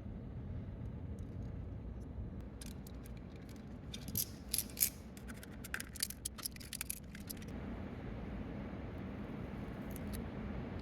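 Small hard plastic parts being handled: a run of sharp clicks and taps, densest and loudest in the middle, over a steady low hum.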